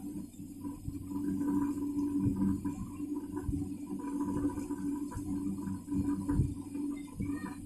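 Broken slate pencil pieces clicking and rattling together in a cupped hand, with irregular light knocks over a steady low hum.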